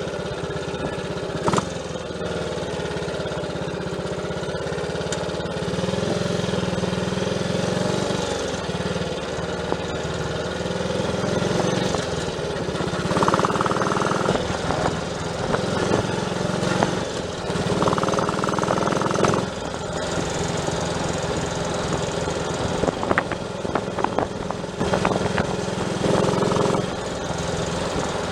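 Triumph Tiger Cub's single-cylinder four-stroke engine running on the move, its level rising and falling a few times.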